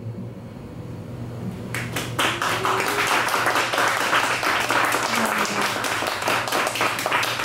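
The last notes of a small jazz band's song die away, and about two seconds in a small audience breaks into applause, with steady hand clapping that carries on.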